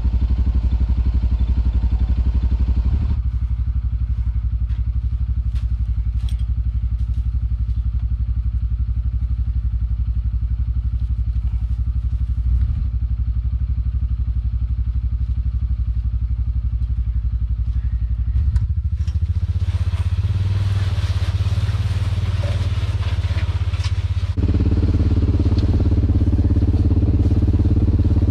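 Tractor engine running steadily, with a few light clicks. Past the middle a rougher noise joins in, and near the end the engine gets louder as the tractor takes up the pull on the strap.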